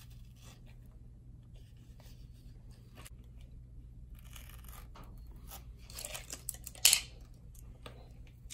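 Hook knife drawn along a cut strip, slicing through a hardened fiberglass cast: faint scraping and tearing, with a louder rip about seven seconds in.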